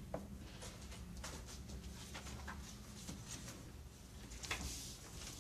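Quiet meeting-room tone: a steady low hum with scattered faint clicks and taps, a slightly louder click about four and a half seconds in.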